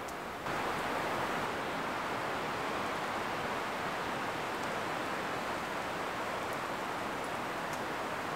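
Wind rushing steadily through the conifer forest, swelling suddenly about half a second in and then holding, with a few faint ticks.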